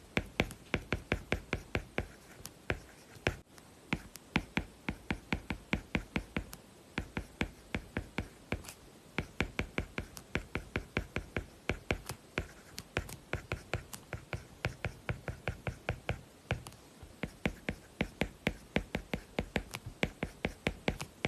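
A stylus writing on an iPad fitted with a magnetic paper-like screen protector, giving a pencil-on-paper sound. It makes quick, sharp tapping and scratching strokes at about four a second, with short pauses between words.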